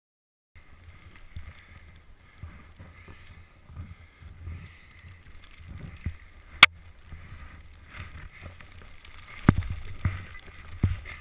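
Skis swishing and ploughing through deep powder snow, with a steady rumble of wind and motion on the camera. A sharp click comes about two-thirds of the way in, and heavy knocks near the end.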